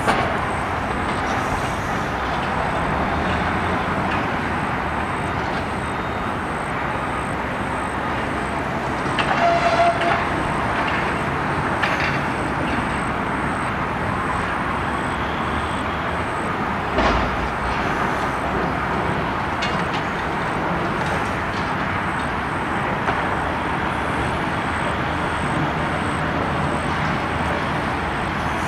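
Steady rumble of a demolition site, with the diesel of a crawler crane working a clamshell bucket, and traffic noise. A few short knocks and clanks come about a third of the way in, and a single dull thump a little past halfway.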